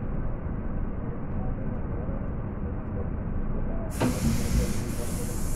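Regional train running at speed, heard from inside the carriage as a steady rumble. About four seconds in, a knock and then a sudden loud rushing hiss set in and carry on past the end.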